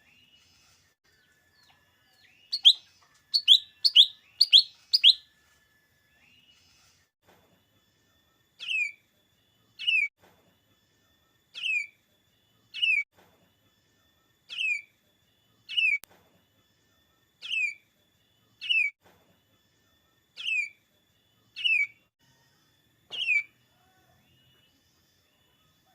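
A small leafbird (cucak ijo mini) calling. First comes a quick run of five loud chirps, then about a dozen clear whistled notes, each sliding down in pitch, spaced a little over a second apart.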